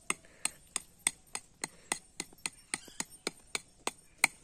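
A broad chopping blade striking packed sandy earth again and again, about three to four sharp chops a second at an even pace.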